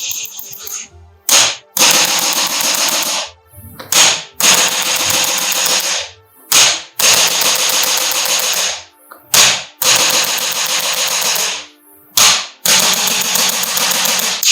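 Rapid mechanical rattling in five bursts of about one and a half seconds each, each led by a brief short burst, over a faint steady hum.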